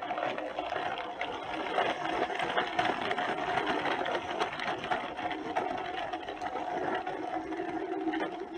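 Small electric motor and plastic gearbox of a toy construction vehicle whirring steadily, with scattered light clicks and rattles.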